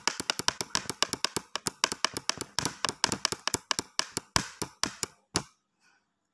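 Typing sound effect: a fast, uneven run of sharp key clicks, about eight to ten a second, that stops about five and a half seconds in, with one more faint click at the end.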